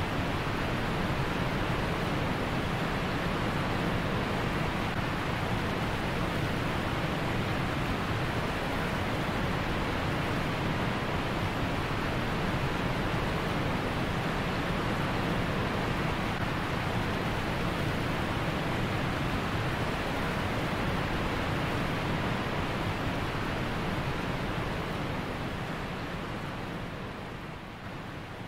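Steady rush of water pouring over a low-head dam spillway. It fades over the last few seconds.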